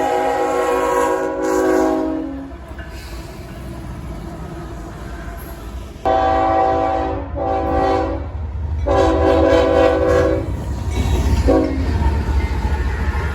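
CSX diesel locomotive's multi-chime air horn giving a salute: one long blast dies away about two seconds in, and after a pause come three blasts in quick succession and a short final toot. The locomotive's low engine and rail rumble grows louder as it passes.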